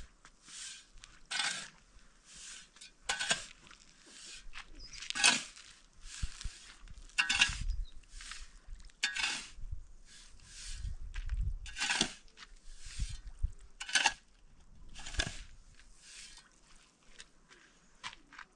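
Metal shovel scraping and scooping through sand, a stroke about every two seconds, as sand is mixed by hand into a water-filled hollow to make mortar.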